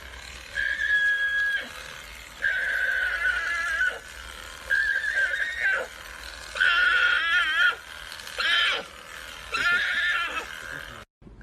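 An animal calling six times in high-pitched calls, each up to about a second and a half long with short gaps between them; one call near the middle wavers up and down in pitch.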